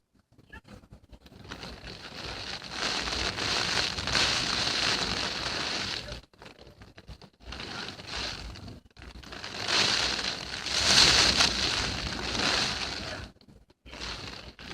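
Typhoon Hagibis's storm-force wind and rain battering a window, heard through the glass with the phone pressed against it. It comes in two long gusts, the second the louder, peaking about eleven seconds in, and each drops away fairly suddenly.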